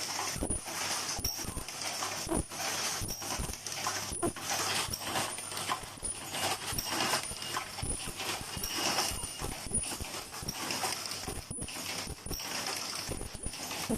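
Automatic strap buckle attaching machine running: a rapid, uneven clatter of mechanical clicks and clacks over a steady high hiss.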